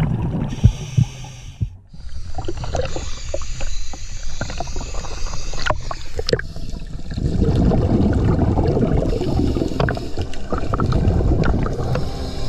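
Underwater camera audio of scuba diving: a muffled rumble of water with the crackle of divers' exhaust bubbles, louder from about seven seconds in.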